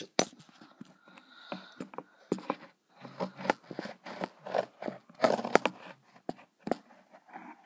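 Handling noise from the camera being fumbled and positioned over a kitchen sink: irregular knocks, scrapes and rustles.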